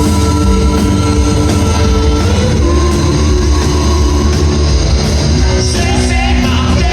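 Live rock band playing loud, driving music, with heavy bass and steady drum hits under sustained held notes.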